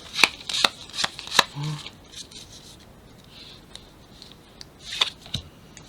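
Trading cards and a foil booster-pack wrapper being handled: a quick run of sharp clicks and snaps, then quiet rustling, with a few more clicks near the end.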